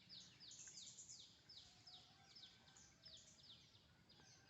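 Faint, evenly repeated high chirps, each a short downward slide in pitch, about two to three a second, from a small calling animal in the surroundings.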